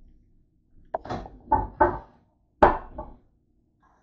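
A quick run of short knocks and clunks as things are handled and set down on a kitchen counter, about six in all between one and three seconds in.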